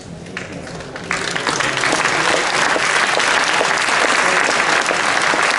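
Audience applauding, breaking out suddenly about a second in and then going on steadily.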